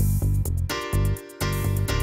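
Instrumental intro music with a steady pulsing bass beat under sustained pitched notes, dropping out briefly a little over a second in.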